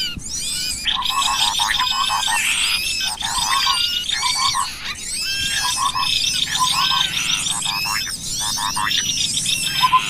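Bird-luring (pikat) sound for cucak kopi and small birds: many small birds chirping at once, with quick rising-and-falling whistles, a buzzy trill, and short runs of rapid low notes about once a second.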